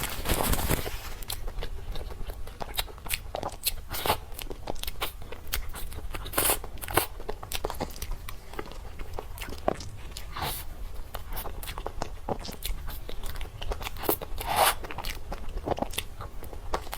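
A person biting and chewing dessert close to the microphone, with irregular crisp crunches and clicks throughout and a few louder bites.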